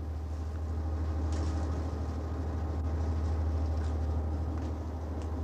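Steady low rumble of a moving train heard from inside a passenger carriage.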